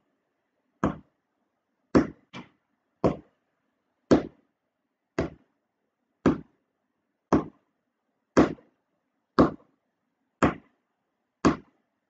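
Steady taps, about one a second, with a quick extra tap just after two seconds in. Each tap marks one note of a so–mi melody that the listener is meant to sing silently in their head (melodic audiation).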